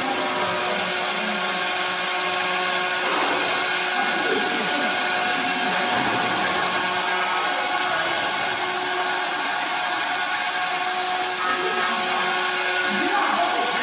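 Aluminium door lock-hole drilling machine running steadily, its electric motor and spindle giving several held tones over an even hiss as the bit cuts into an aluminium profile.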